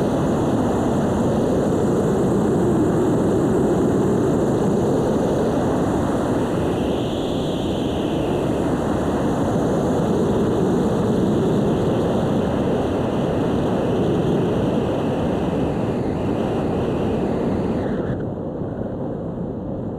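Airflow rushing over the wing-mounted camera's microphone as an ultralight weight-shift trike glides in with its engine switched off; no engine is heard. The rush drops suddenly in level about two seconds before the end, as the trike comes down low over the runway.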